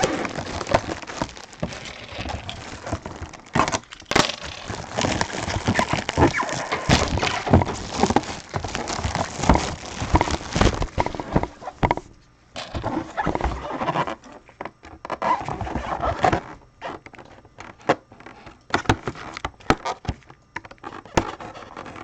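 Trading-card packaging being opened by hand: dense crinkling and tearing of plastic wrap and cardboard with many sharp clicks. About halfway through it thins to scattered clicks and short rustles.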